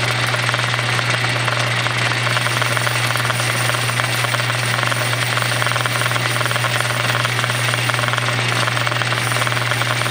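Metal lathe running with a cutting tool fed into the spinning pulley: a steady low motor hum under the even hiss of the cut.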